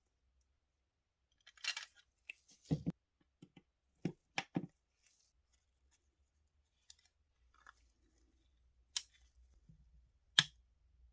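Scattered sharp clicks and taps of small hard parts of a diecast model car being handled, with quiet gaps between them; the loudest click comes near the end.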